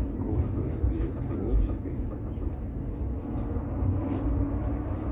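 KTM-23 (71-623) tram running along the track, heard from inside the car: a steady low rumble of the wheels on the rails and the running gear.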